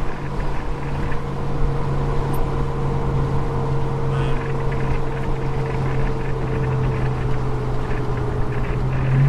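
Car engine and road noise heard from inside the cabin while driving: a steady hum with the throttle eased off through a tightening corner, the engine note sagging slightly. It gets louder near the end.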